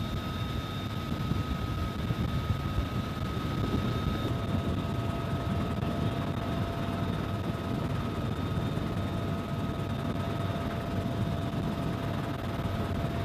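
UH-1Y Venom helicopter in flight: a steady rotor and turbine drone with a thin, constant whine over it. About four seconds in, the sound shifts slightly as a second faint whine joins.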